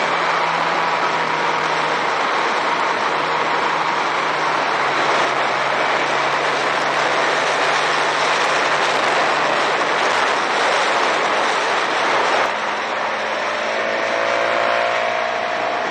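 Motorcycle riding at road speed, the engine running steadily under heavy wind rush on the camera. About three-quarters of the way through the sound drops a little as the bike slows.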